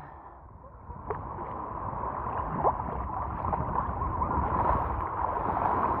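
Small waves washing over the sand in shallow surf: a steady hiss and wash of water that slowly grows louder.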